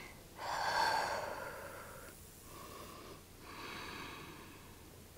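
A woman's slow, audible breathing while holding a deep forward fold: a louder breath starting about half a second in, then two softer breaths.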